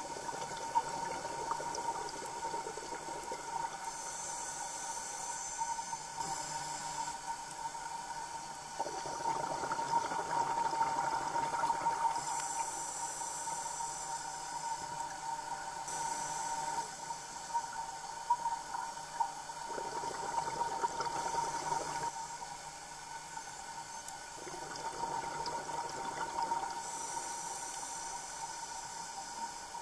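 Scuba diver breathing through a regulator underwater: hissing inhalations alternate with longer rushes of exhaled bubbles every several seconds, over a steady high tone.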